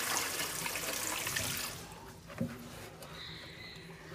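Tap water running into a sink, shut off about two seconds in, followed by a single light knock.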